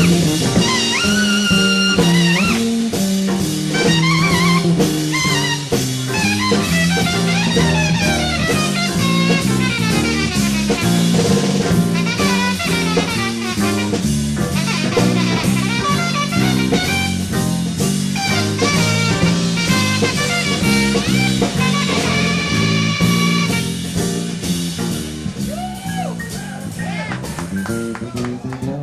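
Big band jazz: a brass and saxophone section playing over drum kit and bass with a steady beat.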